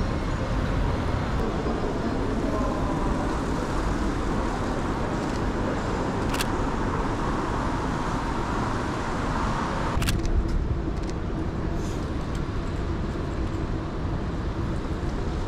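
City street traffic noise: cars running past in a steady wash of sound, with a sharp click about six seconds in and another about ten seconds in, after which the hiss becomes duller.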